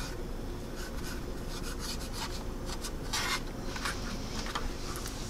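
Light rubbing and handling noises from a plastic 1/48 scale model jet held in the hands: a few short rubs against its surface, the clearest about three seconds in.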